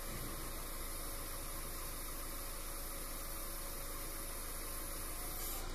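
Steady hiss with a faint low hum underneath, unchanging throughout.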